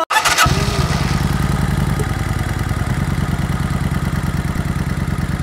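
Motorcycle engine idling steadily with a fast, even thump, after a short burst of noise right at the start.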